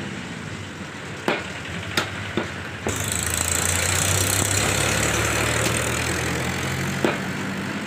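A heavy butcher's knife striking a wooden chopping block as chicken is cut: sharp knocks, four in the first three seconds and one more near the end. About three seconds in, a loud, steady engine noise with a hiss comes in over the low hum and fades near the end.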